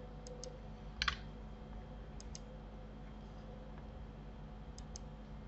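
A few light, sharp clicks from a computer mouse and keyboard, several in quick pairs, over a faint steady hum.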